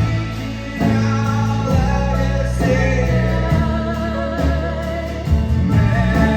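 Live band music with singing: a held sung melody over guitar and sustained low notes.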